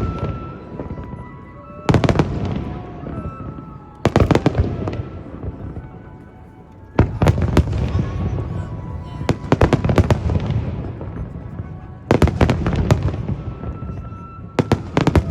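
Aerial fireworks shells bursting over water: clusters of sharp bangs every two to three seconds, each followed by a rumbling echo that fades away.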